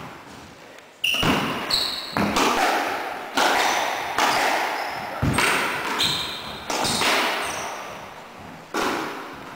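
Squash rally: the ball struck by rackets and smacking off the court walls, about eight sharp hits roughly a second apart starting about a second in, each ringing out in the court's echo. Short high squeaks of court shoes on the wooden floor come between the hits.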